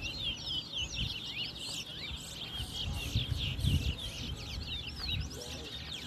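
Caged towa-towa finches singing in a song race: rapid, dense strings of high chirping and whistled notes, one after another, over a low rumble.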